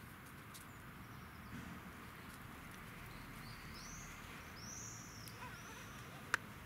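Outdoor park ambience with birds calling: a few short, high, arching chirps about four to five seconds in. A single sharp click near the end.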